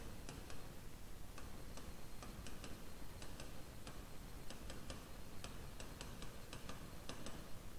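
A pen tip tapping and ticking against a writing screen as words are handwritten: short, irregular clicks, a few a second, over faint room noise.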